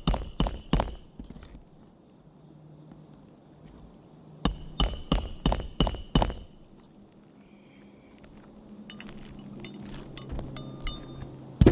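Rapid runs of sharp, ringing clinks, about four a second: one run at the start, then another from about four and a half to six seconds in.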